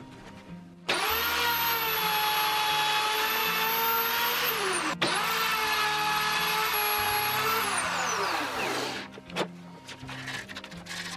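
Handheld electric plunge router running at full speed with a steady high whine, cutting a slot in 18 mm birch plywood. It starts about a second in, and near the end its pitch falls as the motor winds down.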